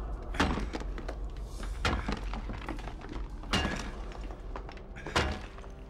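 Four heavy blows of a tool striking stone, about a second and a half apart, as the way through into the passage is broken open, over a low steady rumble.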